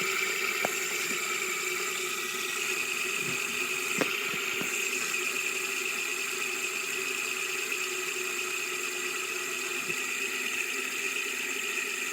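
Fidget spinner spinning on a tabletop: a steady whirring hum with a light rattle, and a couple of small clicks about four seconds in.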